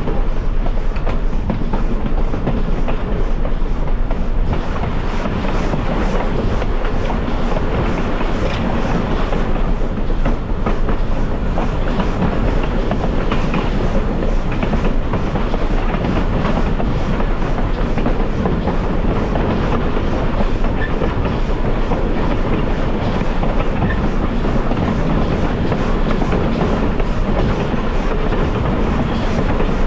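Train running along the track, heard from on board: a steady rumble with wheels clicking over the rail joints.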